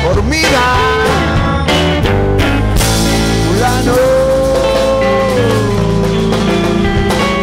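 Rock band playing live on electric guitars, bass guitar and drum kit. About halfway through, a long held note bends slowly downward.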